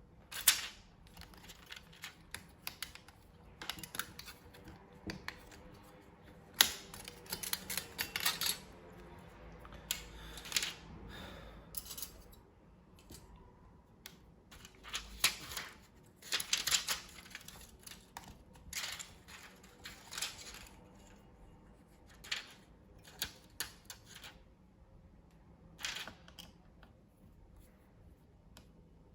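Irregular clicks, taps and scrapes of small plastic and metal laptop parts and tools being handled during disassembly work, in scattered clusters with short pauses between them.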